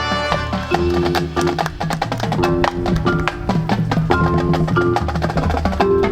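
High school marching band playing its field show: rapid, sharp percussion hits over held wind chords.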